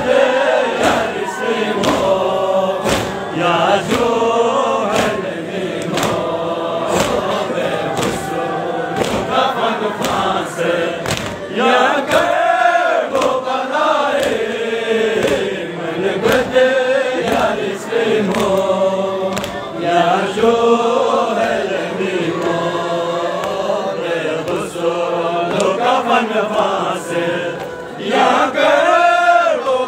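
A crowd of men chanting a Balti noha, a Shia mourning lament, in unison, with hands striking chests in a steady beat of about one to two strikes a second (matam) in time with the chant.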